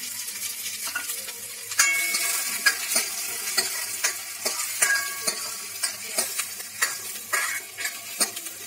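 Chopped onions and garlic sizzling in hot oil in a stainless steel kadai, freshly added, while a steel ladle stirs them with frequent scrapes and clinks against the pan; the sharpest, ringing clink comes about two seconds in.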